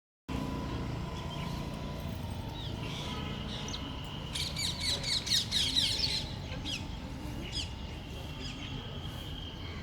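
A bird chirping: a quick run of sharp, high chirps about halfway through, with scattered single chirps around it, over a steady low background noise.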